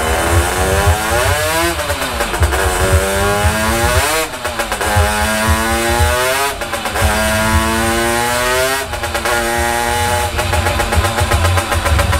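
Simson moped's two-stroke engine run up on a roller dyno. Its pitch climbs, drops suddenly at a gear change and climbs again, four times over, then holds at high revs near the end.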